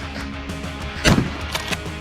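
A 12-gauge Boito pump-action shotgun fires once about a second in, followed by two quick clacks as the pump is worked back and forward. Background music plays throughout.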